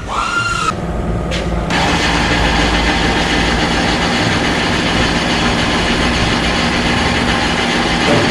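A short electronic beep, then from about two seconds in a loud, steady mechanical noise with a low hum that keeps going without a break.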